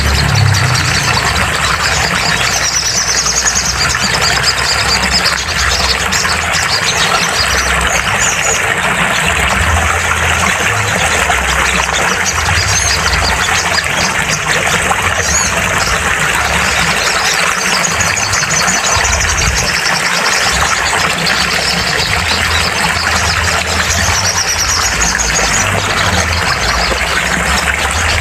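Sogon bird calls: bursts of high chattering song that come back every few seconds over a loud, steady hiss and a low hum.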